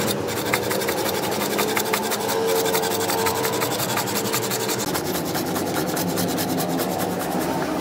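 Hand saw cutting through a wooden knife handle clamped in a vise: a steady run of rapid back-and-forth rasping strokes.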